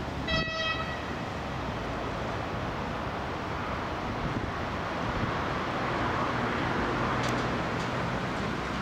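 A short, high-pitched horn toot lasting about half a second, then the steady running of an approaching 2TE116 diesel locomotive, its V16 diesel engine slowly growing louder, with a few clicks near the end.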